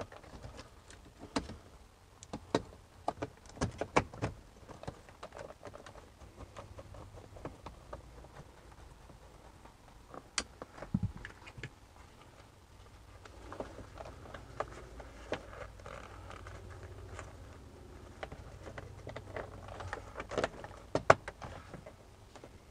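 Plastic clicks and taps of a BMW E46's centre-console trim and window-switch panel being pressed into place around the gear lever, then the shift boot rustling as it is worked down over the lever, with a few sharper clicks near the end.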